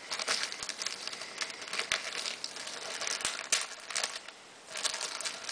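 Thin clear plastic bag crinkling and crackling as a TV remote control is handled and pulled out of it, in irregular bursts of small crackles and clicks, with a brief lull about four seconds in.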